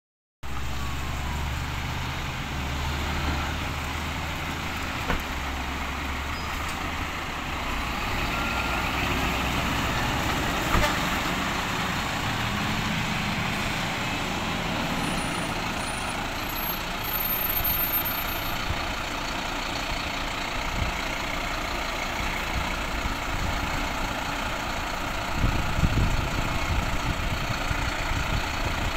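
Diesel engines of heavy fire trucks running as they pull away down the street one after another, with a steady low engine hum at first and a louder engine rumble near the end as another truck moves off close by.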